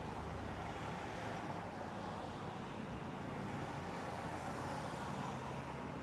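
Steady rushing of wind outdoors, with a low hum underneath.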